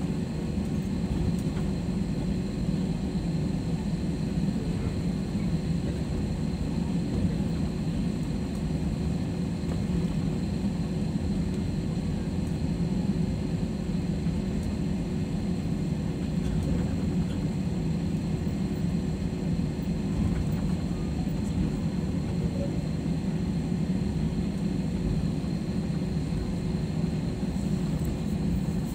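Jet airliner cabin noise heard at a window seat while the aircraft taxis: a steady low rumble from the engines and airframe, with a faint constant hum over it.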